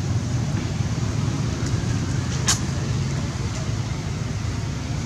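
Steady low background rumble, with one sharp click about halfway through.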